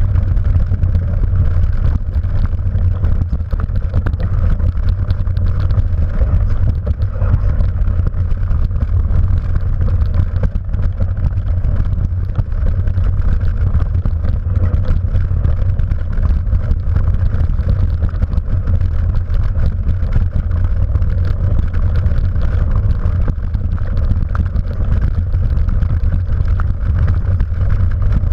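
Mountain bike ridden fast down a rough, wet trail, heard from a camera on the bike. There is a steady low rumble of wind and tyre noise, with many small clicks and rattles from the bike over the bumpy ground.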